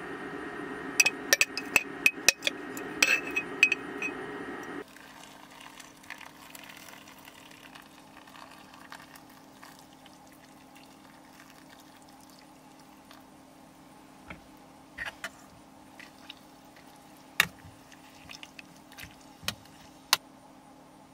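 Metal spoon clinking against a stainless steel pot in a quick run as kimchi is scooped in, then water poured into the pot and a few separate clinks of a ladle against the metal near the end. A steady low hum runs underneath.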